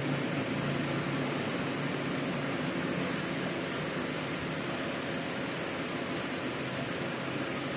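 Steady hiss-like background noise, even and unchanging, with a faint low hum beneath it.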